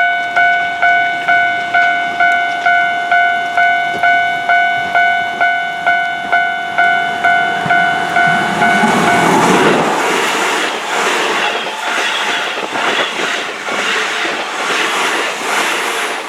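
Japanese level crossing warning bell ringing in a quick, even beat of about two strokes a second. About nine seconds in it gives way to a Keihan electric train passing through the crossing: a rumble, then the rhythmic clatter of its wheels over the rail joints.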